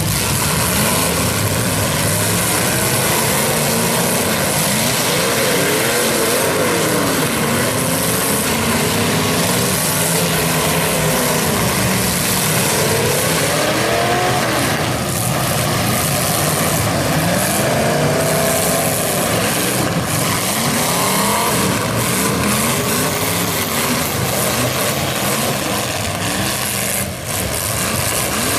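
Several demolition derby cars' engines revving hard together, their pitch repeatedly climbing and falling as the cars accelerate and back off around the arena.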